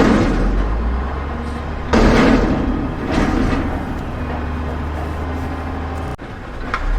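Large dump truck's engine running with a steady low drone, broken by sudden loud noisy surges about two seconds in and again a second later as the truck works its load. The sound cuts out briefly about six seconds in.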